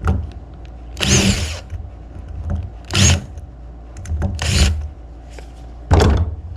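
A handheld power driver run in four short bursts, removing the screws that hold the venturis in a four-barrel carburetor.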